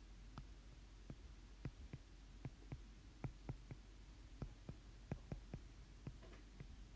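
Stylus tapping on a tablet screen during handwriting: faint, sharp, irregular clicks, roughly two a second, over a low steady hum.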